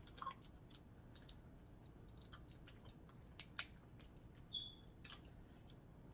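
Faint eating sounds: scattered soft clicks and smacks of someone chewing seafood, with a brief squeak about four and a half seconds in.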